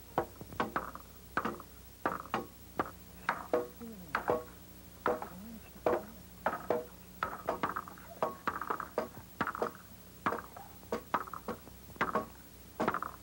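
Farm animals calling in short, repeated calls, about two a second.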